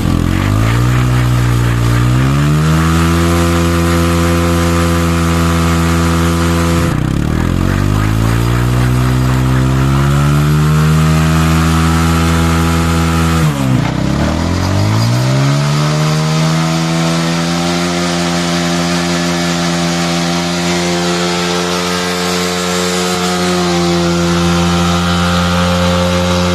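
TVS Apache RTR 160's single-cylinder engine held at high revs during a burnout, spinning the old rear tyre on the road. The revs drop sharply and climb back up twice, about seven seconds in and about halfway through.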